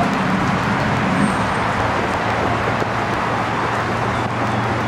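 Steady road traffic noise with a low engine hum underneath.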